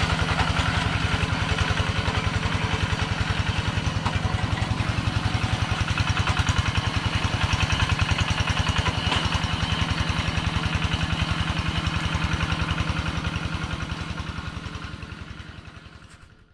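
Kubota two-wheel hand tractor's single-cylinder diesel engine running steadily with a rapid, even pulse while plowing flooded paddy mud, fading out near the end.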